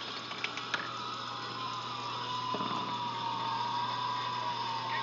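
A few light clicks of a marble dropping through the pegs of a wooden Plinko board, over a steady high whine that sags slightly in pitch and a low hum.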